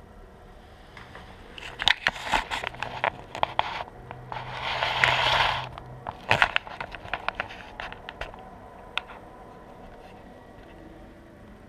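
Handling noise from a camera being moved and set down on a wooden floor: a run of clicks and knocks, a scraping rustle for about a second and a half in the middle, then scattered lighter clicks.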